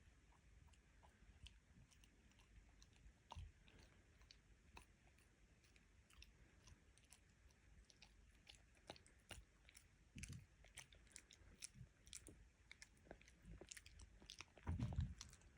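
Faint chewing and gnawing from a puppy: scattered small clicks and crunches that come more often in the second half, with a few louder knocks near the end.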